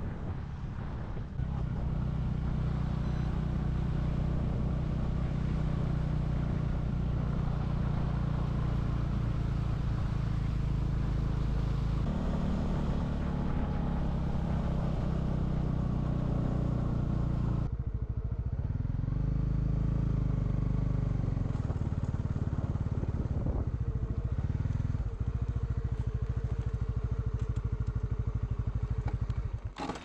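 Motorcycle engine running steadily under way, heard from the rider's seat with a rushing hiss over it. About 18 s in the hiss drops away abruptly and the engine note swells up and falls back once.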